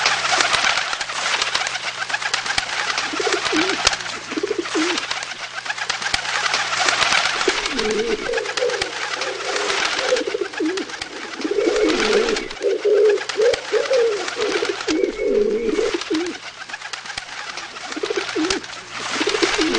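Pigeons cooing over and over in low, warbling coos, a few early on and then a dense run of overlapping coos through the middle and more near the end, over a steady rustling hiss.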